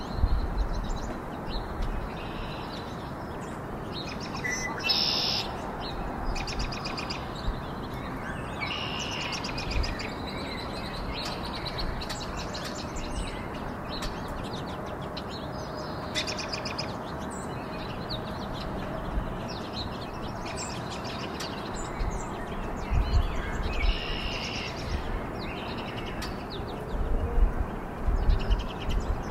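Small songbirds chirping and twittering in short high calls scattered throughout, over a steady hiss of outdoor background noise. A few low thumps come near the end.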